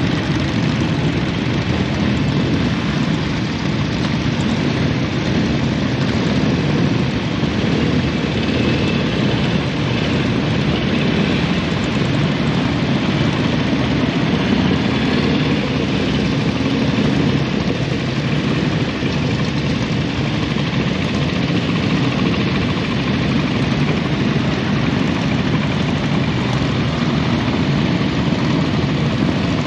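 Many classic AJS and Matchless motorcycle engines running together at idle, a steady mingled engine sound.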